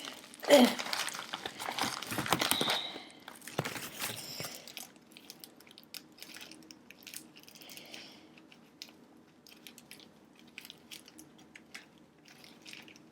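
Packaging crinkling and rustling as it is handled and opened by hand, loudest in the first few seconds, then giving way to faint scattered small clicks and taps.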